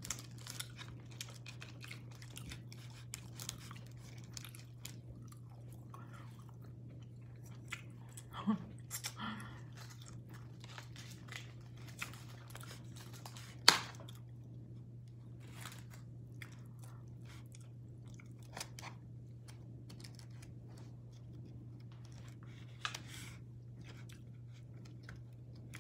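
Close-up sounds of a person eating: chewing and crunching, with scattered small clicks of chopsticks and plastic utensils against a takeaway container and one sharper click about 14 seconds in. A steady low hum runs underneath.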